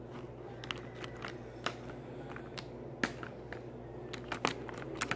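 Fingertips and nails tapping and brushing the edges of a stack of papers, making scattered light clicks and rustles, a little more often near the end.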